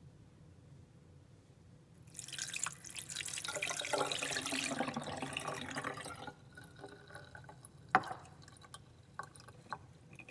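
Water poured from a drinking glass onto a toy monster truck in a sink, splashing for about four seconds from about two seconds in, then dripping, with one sharp knock near eight seconds.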